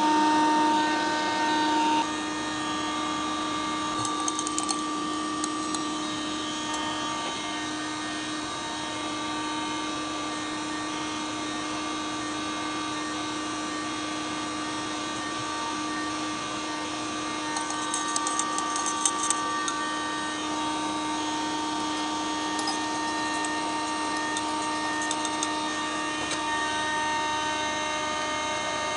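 Electric motor of a laboratory overhead mixer running at a steady speed with a constant whine, stirring a thick white serum in a glass beaker; the sound drops a little about two seconds in. Light clicks of a metal spatula against the glass come about four seconds in and again around eighteen seconds in.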